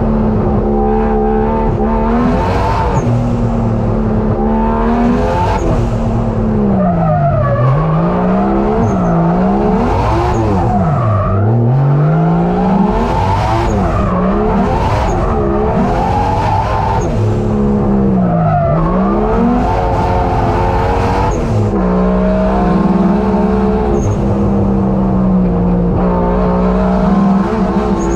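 Race car engine heard from inside the cabin, held at high revs, with the revs dropping and climbing back up sharply several times through the middle as the driver lifts and re-accelerates, then held high again near the end.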